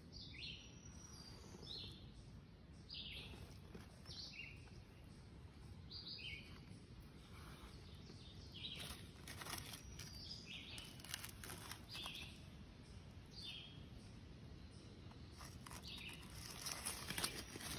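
Faint birdsong: short high chirps, one or two a second, some sliding downward in pitch, over a low outdoor background hiss. Soft clicks and rustles come in around the middle and again near the end.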